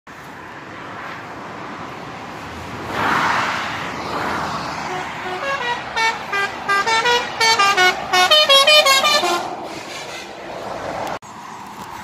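A truck's Busuri multi-note melody air horn plays a quick tune of short, separate notes for about four seconds. It sounds over the steady noise of road traffic, and a vehicle passes about three seconds in.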